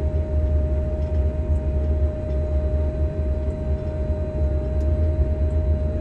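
Tractor engine droning steadily, heard from inside the cab, with a steady high whine over it.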